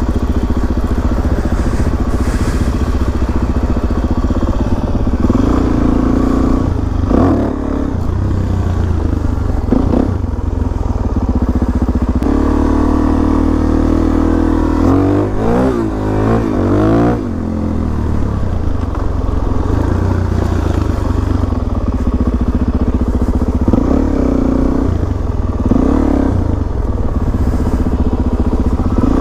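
Suzuki DR-Z400SM single-cylinder four-stroke engine running under way, revs rising and falling with throttle and gear changes. There is a stretch of quick up-and-down revving a little past the middle.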